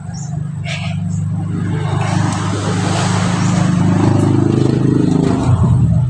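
A motor vehicle's engine running close by, growing louder over the first four seconds and then staying loud and steady.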